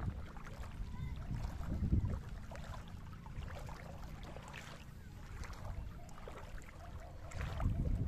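Wind buffeting the microphone in gusts, strongest at the start and again near the end, over faint splashing and lapping of shallow seawater.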